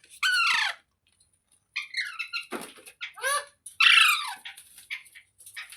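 Pet parrot giving a run of harsh, squeaky calls that slide down in pitch, with short chirps between them; the loudest call comes near four seconds in.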